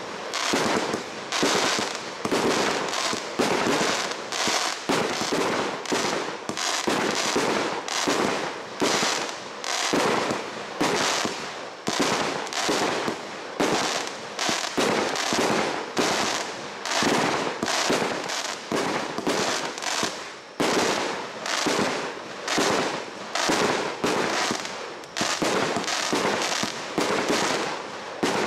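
A 49-shot F3 consumer firework cake firing its shots in steady succession, a sharp bang about every half second, each followed by a short crackling trail.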